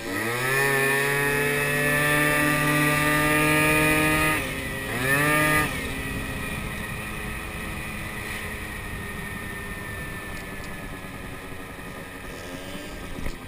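Moped scooter engine revving up sharply and holding a high, steady whine for about four seconds, dropping off, revving again briefly, then easing back to a quieter tone that slowly falls as it coasts.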